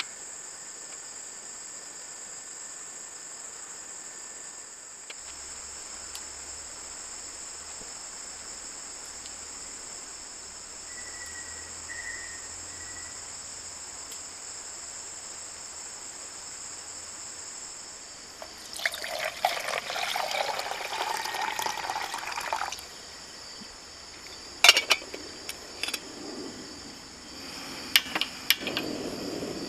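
Steady high-pitched trilling of crickets. About two-thirds of the way in, liquid pours for about four seconds, followed by a few sharp clinks.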